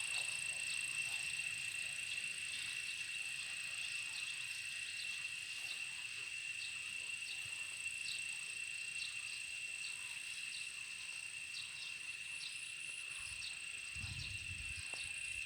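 Crickets singing: a steady, unbroken high-pitched trill, with short faint chirps dotted over it.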